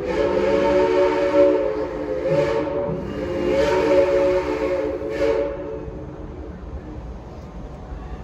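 Bently four-chime steam whistle on Frisco Silver Dollar Line steam locomotive No. 14, sounding one long chord of several tones that swells and eases, with brief rushes of hiss, and dies away about five and a half seconds in.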